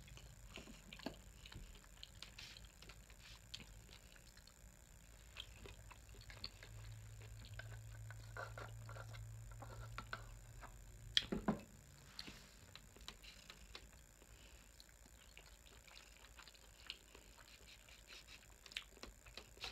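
Quiet eating sounds: soft chewing and small scattered clicks. Partway through comes a sip through a straw from a glass mason-jar mug, and about eleven seconds in there is one sharp knock, the loudest sound.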